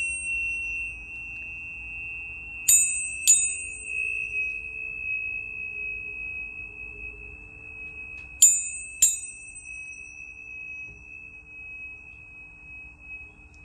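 Planetary tuning forks struck in two quick pairs, about three seconds in and again about eight and a half seconds in, each strike giving a sharp metallic ping. Between and after the strikes a steady high-pitched ring sustains.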